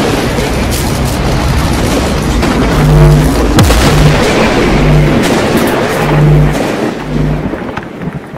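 Loud cinematic logo-intro sound effects: a dense rushing rumble with boom-like hits, one sharp hit about three and a half seconds in, and a low humming pulse about once a second through the middle, fading out near the end.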